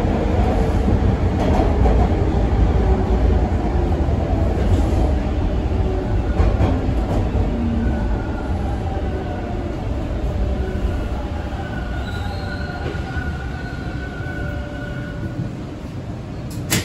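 TTC T1 subway car heard from inside, running through the tunnel with a dense low rumble that slowly dies away as the train slows for a station. From about eight seconds in a high steady squeal rises over the rumble as it brakes, and a sharp click comes near the end.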